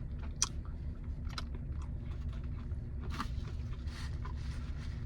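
Close-up chewing and crunching of food, with a few sharp crunches, the sharpest about half a second in, over a steady low hum.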